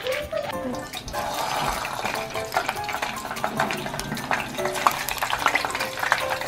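Spring rolls deep-frying in hot oil in a saucepan: a steady sizzle with dense crackling and popping, starting about a second in.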